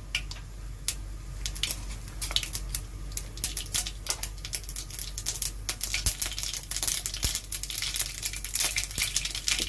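Mustard seeds spluttering in hot oil in a kadai, a stream of sharp little pops and crackles that come more thickly as the seeds heat. This is the tempering stage, where the popping shows the oil is hot enough and the seeds are cracking open.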